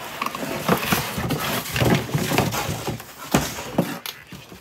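White foam packing blocks squeaking and rubbing against a metal LED driver and the cardboard box as the driver is pulled free, with scattered knocks and rustles of handling.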